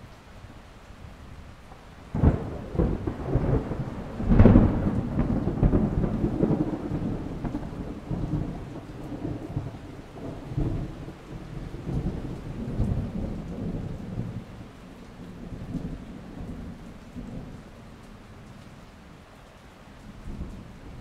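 Thunderstorm with steady rain. A sharp thunderclap comes about two seconds in and a louder crash a couple of seconds later, then long rolling rumbles slowly fade under the rain.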